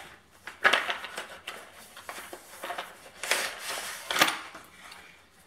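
Packaging of a repair kit's tool packet rustling and clicking as it is opened by hand, with a few louder rustles about a second in and again around three to four seconds in.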